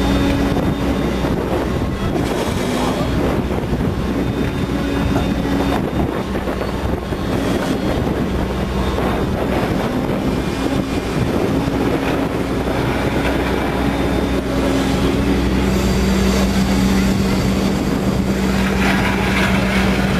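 Excavator's diesel engine running steadily with its hydraulics working the tiltrotator and bucket; the engine note shifts as the machine is worked and gets louder and steadier about three-quarters of the way through.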